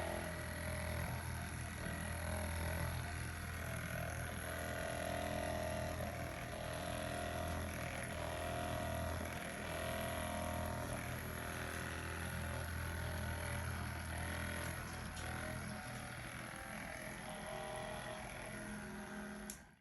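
Percussion massage gun running steadily, its motor giving a continuous buzzing hum. The low hum weakens near the end and the sound then cuts off abruptly.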